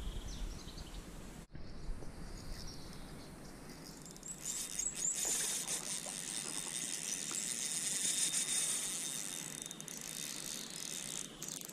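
Insects chirring steadily, a high, even buzz that comes in about four seconds in, over a faint low rushing noise.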